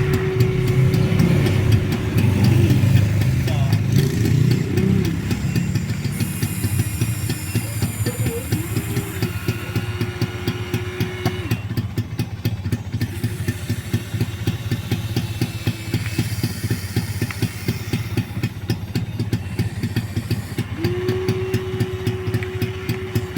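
Electric motors and gearboxes of a Huina 1593 RC excavator whining in spurts as the arm and bucket are worked: a steady tone that starts and stops several times, sliding down in pitch as each movement ends, over a constant buzzing hum.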